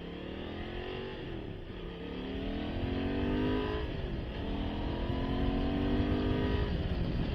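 Honda Transalp motorcycle engine accelerating through the gears: the revs climb and drop back three times at the upshifts, with wind noise growing as speed builds.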